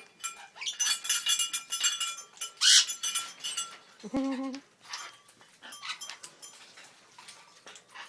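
African grey parrot making a run of soft clicks and rustling sounds, with one louder harsh burst just under three seconds in and a short low note about four seconds in.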